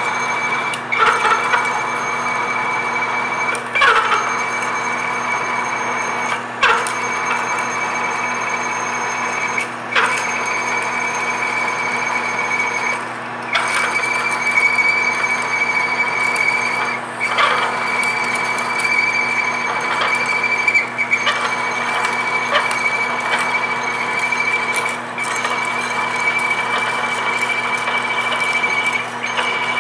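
Manual engine lathe running at about 275 RPM while a 1 3/16-inch high-speed steel Morse taper shank drill bores into 6061-T6 aluminum: a steady whine from the machine under the cutting noise, with a sharp click every few seconds.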